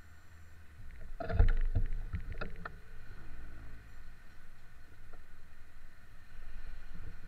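Low rumble of passing road traffic, with a quick cluster of knocks and clicks about a second in and the rumble growing louder near the end as vehicles approach.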